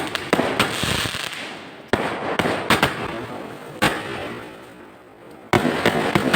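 A series of sharp explosive bangs at irregular intervals, about seven in all, each trailed by a crackling hiss that fades away. The longest gap comes after about four seconds, then a loud bang near the end.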